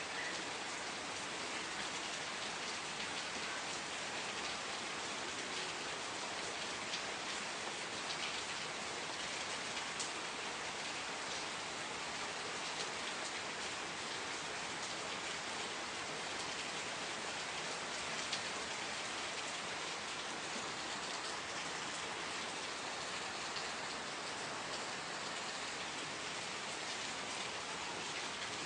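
Steady rain falling, a dense even hiss of drops with fine scattered patters on surfaces.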